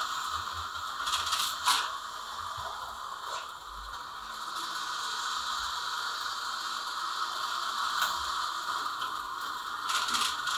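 HO-scale slot cars running on plastic track: a steady whirring of their small electric motors and gears, broken by a few sharp clicks and clatters.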